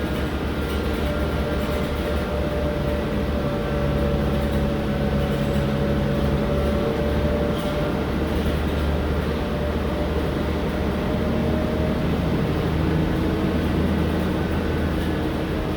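Mercedes-Benz O-500M city bus with its rear-mounted diesel engine and drivetrain running steadily under way. There is a low drone with a steady whining tone on top, the odd note the uploader calls a strange noise.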